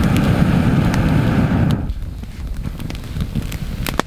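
Air blown through a fire-blowing pipe into a wood campfire: a steady rushing whoosh that stops sharply about two seconds in. Crackling and sharp pops from the burning wood follow.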